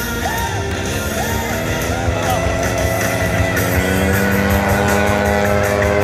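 Background music mixed with a model airplane engine running, its pitch slowly rising.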